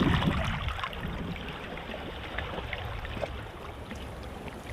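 Seawater washing and trickling among shoreline rocks, with scattered small clicks and splashes.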